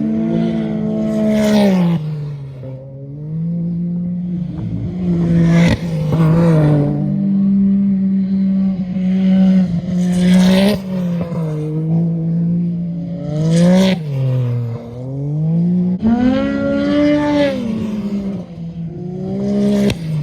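Off-road race vehicles' engines running hard, the engine note dipping and climbing again and again as drivers lift and get back on the throttle through the road gap. About five loud, harsh surges come as vehicles pass close.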